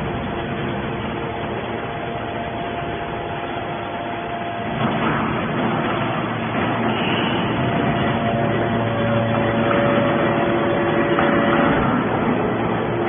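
Straw baling machine running: steady machine noise with several held whining tones. The tones change about five seconds in and the machine gets a little louder.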